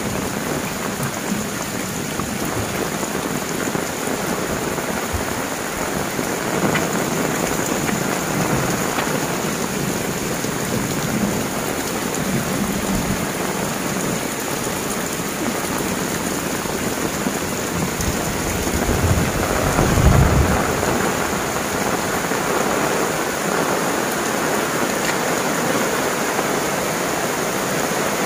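Heavy tropical rain pouring down steadily on leaves, ground and roofs. About two-thirds of the way through, a low rumble of thunder swells and is the loudest part.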